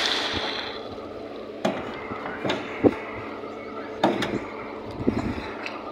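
Building-site clatter on a rooftop concrete pour: about five sharp knocks and clunks, like wooden planks and a steel wheelbarrow being handled, the loudest near the middle, over a steady hum of machinery and a short rush of hiss at the start.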